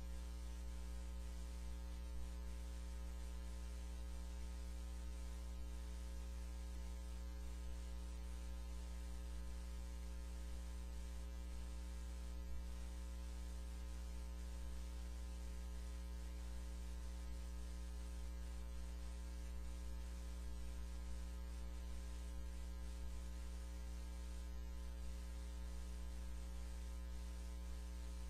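Steady electrical mains hum, a low drone with a row of higher overtones, over a faint even hiss, unchanging throughout.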